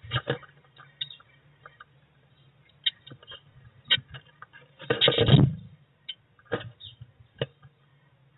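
A blue tit's claws tapping and scratching on the wooden floor and walls of a nest box, in scattered sharp clicks and scrapes, with a louder scrabbling flutter about five seconds in as the bird leaves through the entrance hole.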